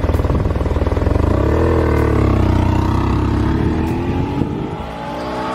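Honda PC800 Pacific Coast's V-twin engine pulling away: the revs rise, dip at a gear change and climb again, while the sound slowly fades as the motorcycle rides off.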